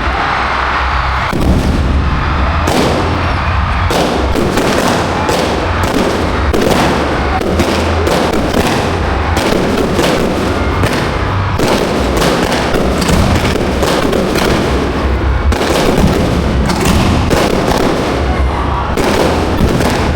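Aerial fireworks display heard close to the launch site: a dense, continuous barrage of loud bangs from shell launches and bursts, many reports a second over a heavy low rumble.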